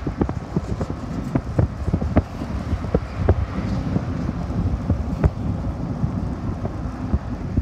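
Cabin noise of a moving vehicle: a steady low rumble with frequent irregular knocks and clicks.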